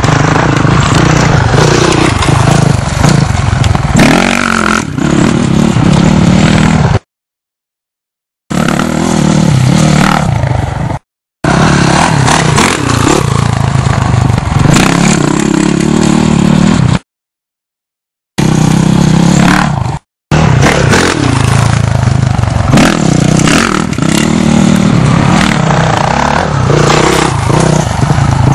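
Dirt bike engine revving up and down as it rides the track, loud and harsh, with rough clattering noise over it; the sound cuts out to dead silence several times.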